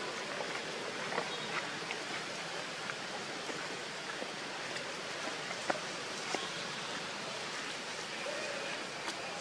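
Steady outdoor background hiss, with a few faint soft clicks scattered through it.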